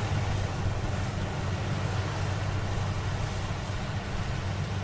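Rice combine harvester's diesel engine running steadily in the field, a low drone, with wind noise on the microphone.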